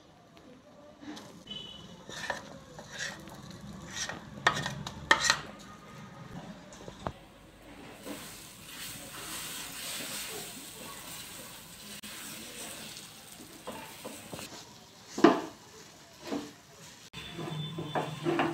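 Ground moong dal paste frying and sizzling in hot oil in a nonstick frying pan while a silicone spatula stirs and scrapes it. Scattered knocks of a steel bowl and the spatula against the pan, the loudest one near the end.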